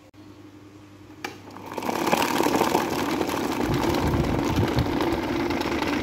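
Electric table fan running close up: a sharp click a little over a second in, then a loud, steady whirring rush of air from the spinning blades, with a low uneven rumble under it.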